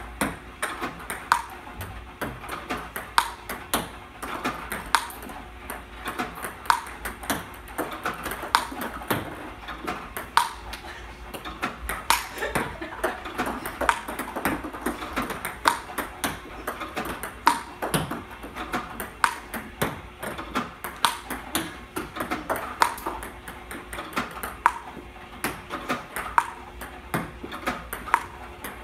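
Plastic table-tennis balls fed by an iPong Pro robot, bouncing on the table and struck with a Stiga Pro Carbon paddle in a steady forehand drill. A sharp, ringing pop comes about every second and three-quarters, with lighter clicks in between.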